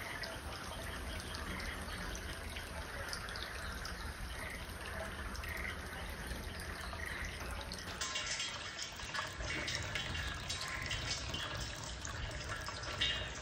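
Small stream of water trickling in a garden, with frogs calling about once a second over it. About two-thirds of the way through the frogs give way to brighter trickling and dripping water.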